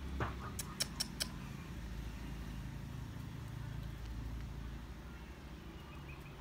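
Steady low background rumble, with a dull knock and then four quick sharp clicks in the first second and a quarter.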